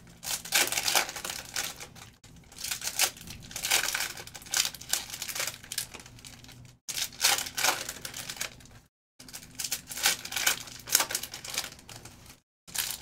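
Foil trading-card pack wrappers crinkling and tearing in irregular bursts as packs are opened and the cards handled. The sound cuts out completely for a moment three times.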